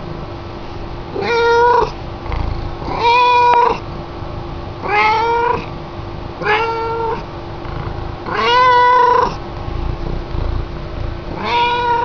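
Domestic cat meowing again and again: six meows about two seconds apart, each under a second long.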